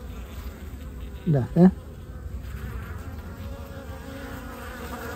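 Honeybees buzzing steadily around an open hive. A short voice sound comes from a person about a second and a half in.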